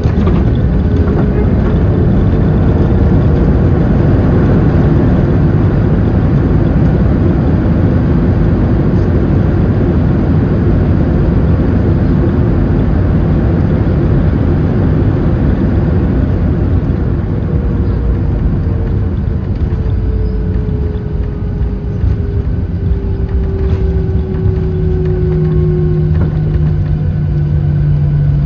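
Jet airliner cabin noise during the landing roll on the runway: the engines and the rush of the airframe, heard from a window seat over the wing. A whine falls slowly in pitch through the second half as the aircraft slows, and a steady low hum comes in near the end.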